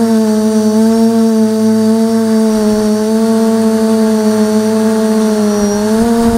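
Multirotor drone's motors and propellers droning steadily, picked up close by the camera carried on the 550 mm quadcopter. The pitch sags briefly near the end and then rises again.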